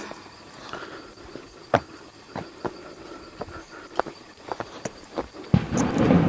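Footsteps on stone steps: irregular sharp taps and scuffs of shoes on stone while climbing a stone stairway. A louder rush of noise comes in about five and a half seconds in.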